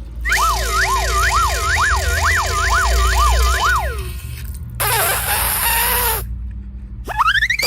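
A warbling siren-like tone, rising and falling about twice a second for some three and a half seconds. Then a short hiss with a falling tone, and a quick rising whistle near the end.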